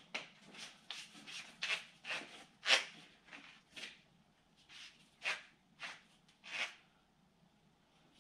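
Flywheel bolts being run in with a hand tool: a series of short raspy metal strokes, coming quickly at first and spacing out after about four seconds.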